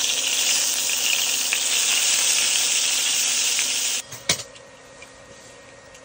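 Bacon sizzling loudly in a small pan on an induction stove, a steady high hiss that cuts off suddenly about four seconds in, followed by a single sharp click.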